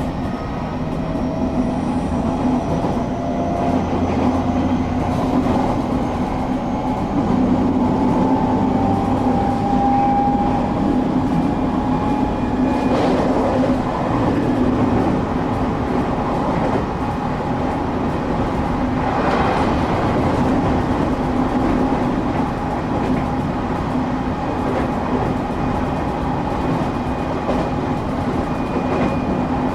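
Cabin noise of a moving electric local train: a steady running rumble and hum, with a faint motor whine that rises slowly in pitch over the first dozen seconds as the train picks up speed. A couple of light rail clacks come about halfway through.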